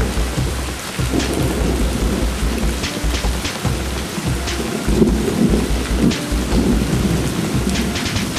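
Heavy rain pouring down steadily, with a low rumble underneath and scattered sharp hits of drops.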